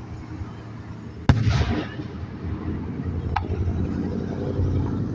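Fireworks: a big aerial shell bursts with a loud bang about a second in and crackles briefly. A fainter bang follows about two seconds later, and a low rumble carries on after the big burst.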